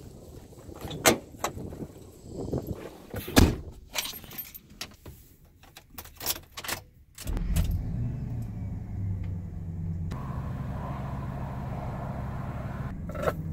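Clicks and knocks of a pickup truck's door and keys, then about seven seconds in the truck's engine starts and settles into a steady idle.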